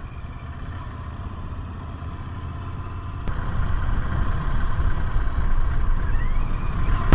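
Royal Enfield Continental GT650's parallel-twin engine running as the bike rides, with wind noise, growing louder from about three seconds in.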